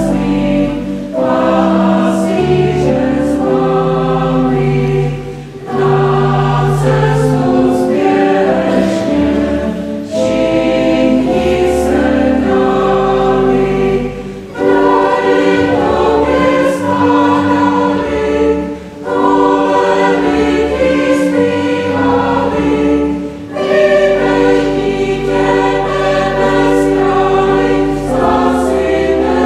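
Mixed choir of men's and women's voices singing a hymn in parts, with short breaks between phrases every four or five seconds.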